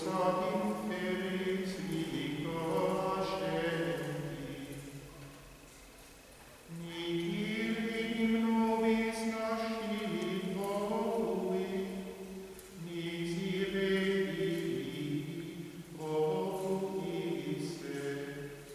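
Gregorian plainchant sung unaccompanied by male voice, in four long, sustained phrases with short pauses between them, the longest pause about a third of the way in.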